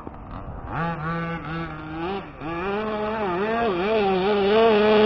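Small two-stroke engine of a gas-powered 1/5-scale RC truck, low and quiet at first, then revving up under throttle a little under a second in, its pitch rising and dipping before it holds high near the end.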